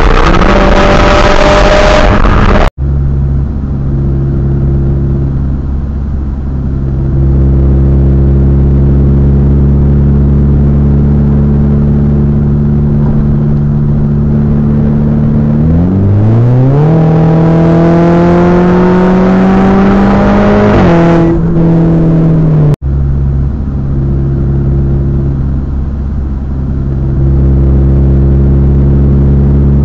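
Big-turbo, tuned Audi A5 2.0T four-cylinder engine heard from inside the car. It opens with a short hard pull full of intake and turbo noise, then runs at steady cruising revs. About halfway through it accelerates, the pitch climbing steadily for several seconds before dropping back suddenly, then it returns to steady cruising.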